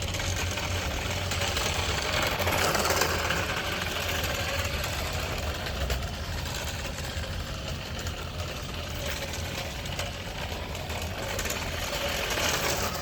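Radio-controlled car's motor running steadily as the car drives, a little louder about two to three seconds in.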